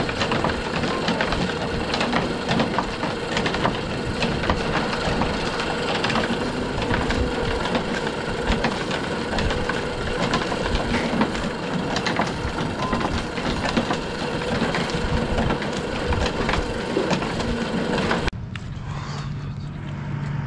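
Inclined manure conveyor of a cowshed barn cleaner running, unloading manure and straw: a dense, steady clatter and rattle of chain and slats with many small knocks over a steady motor hum. About two seconds before the end it cuts off abruptly, leaving a quieter low hum.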